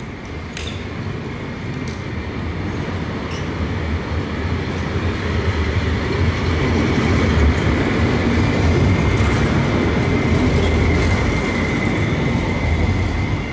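Low-floor street tram approaching and passing close by, its running rumble growing louder over the first several seconds. A steady high whine sounds over the rumble.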